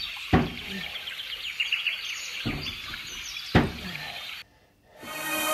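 Dull thumps from wall-facing handstand push-ups, three in a few seconds, over birds chirping. The sound cuts out about four and a half seconds in, and music starts just before the end.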